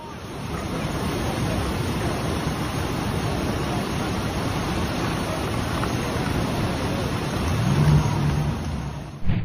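Steady rushing noise of fast-moving floodwater, with a low hum rising briefly to the loudest point about eight seconds in.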